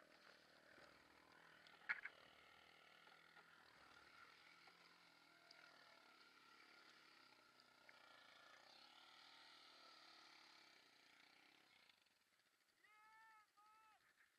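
Quad bike engine running, very faint and muffled, as the quad wades through water, with a sharp knock about two seconds in. Two short rising-and-falling calls near the end.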